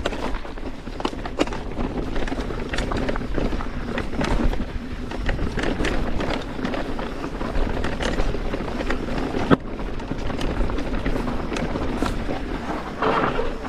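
Mountain bike rolling fast down a rocky trail: tyres crunching over loose stones, with a steady run of clicks and rattles from the bike and one sharp knock about two-thirds of the way through. Low wind rumble on the microphone throughout.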